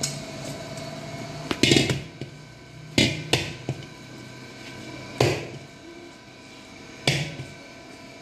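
Maida dough kneaded by hand in a stainless-steel bowl: a knock every second or two, about six in all, as the hand works the dough against the bowl.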